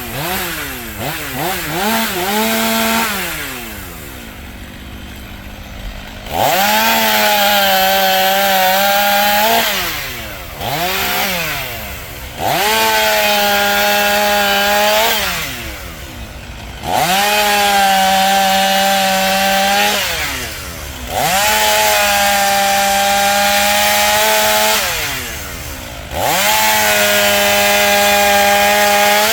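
Two-stroke chainsaw cutting through fallen bur oak wood. It revs up to full throttle and holds for about three seconds per cut, five times, dropping back toward idle between cuts, with a few quick throttle blips near the start.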